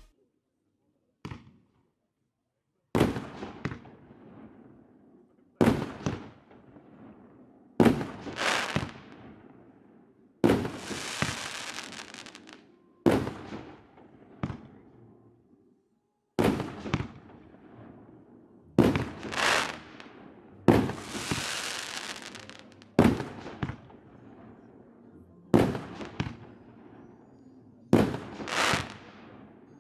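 A 25-shot, 1.9-inch firework cake firing its shots one after another: sharp bangs every one to three seconds, some in quick pairs, each fading out over a second or two. The first shot is a small pop about a second in.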